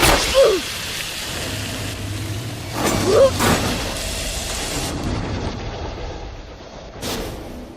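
Film fight-scene sound effects: a steady rain-like noise with a low rumble, two short pitched cries about three seconds apart, the first falling and the second rising, and a sharp hit about seven seconds in, fading toward the end.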